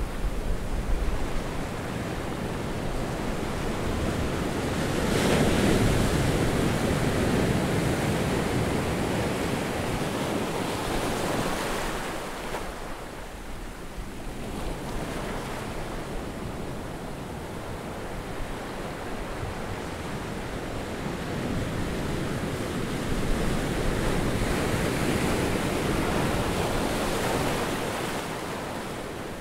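Ocean surf on a sandy beach: the wash of breaking waves swelling and ebbing in two long surges, with some wind.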